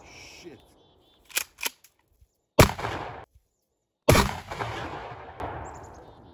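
Mossberg Shockwave pump-action shotgun fired twice, the shots about a second and a half apart, the second with a long fading tail. A few sharp clicks come just before the first shot.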